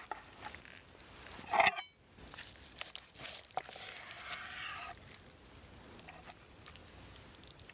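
Small handling sounds of serving food and drink, with one loud ringing clink about a second and a half in.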